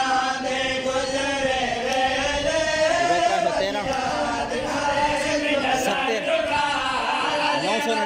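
Group of men chanting a noha, a Shia mourning lament, in long drawn-out held notes with the voices rising and falling together.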